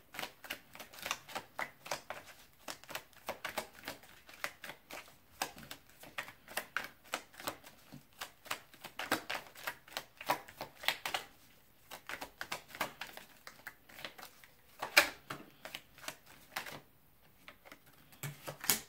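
A tarot deck being shuffled by hand: a quick run of light card clicks and flicks, several a second, with a sharper snap about fifteen seconds in. The shuffling stops shortly before the end.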